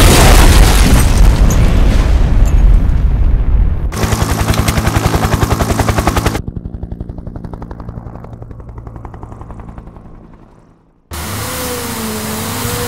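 Dubbed action-film sound effects. A loud rumbling blast comes first. A fast, even rattle follows and weakens and fades away over several seconds. After a sudden cut about eleven seconds in, a steadier vehicle-like sound starts, with a wavering whine.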